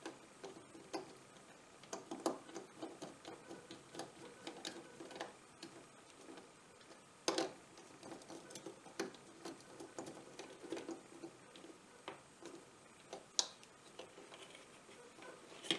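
Faint, irregular small metal clicks and taps from a nut driver turning the small terminal nuts on a 12-volt circuit breaker, with a few sharper clicks among them.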